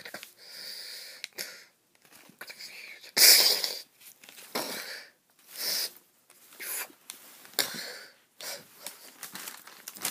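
A person making a series of breathy, hissing mouth noises, about eight puffs of half a second or so with short gaps between, the loudest about three seconds in.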